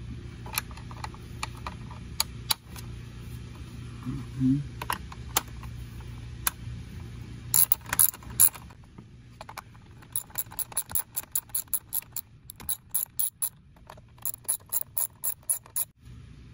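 Hand ratchet wrench clicking as bolts on the engine cover are loosened: scattered clicks at first, then runs of rapid clicks, about five a second, in the second half.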